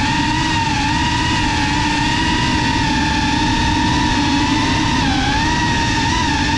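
GEPRC Cinelog35 FPV cinewhoop's brushless motors and propellers whining steadily over a rush of prop wash and wind. The pitch dips briefly about five seconds in and wobbles with the throttle near the end.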